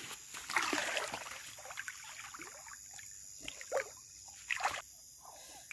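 Irregular splashing and sloshing of water in short, uneven bursts.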